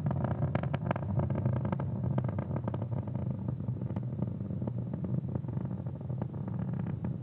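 Falcon 9 first stage's nine Merlin engines in flight, heard as a steady low rumble with dense crackling, easing a little in the second half.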